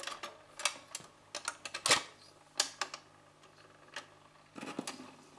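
Record-changer mechanism of a Dansette Major 21 Deluxe record player cycling, an irregular series of clicks and clunks as the tone arm is moved and swings across onto the record. The loudest clunk comes about two seconds in, with another cluster of clicks near the end, over a faint steady hum.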